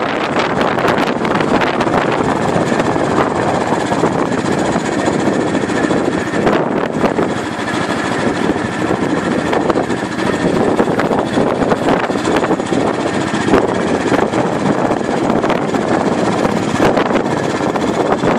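Wind buffeting a mobile phone's microphone from a moving vehicle: a loud, steady, gusty rush with the vehicle's road noise underneath.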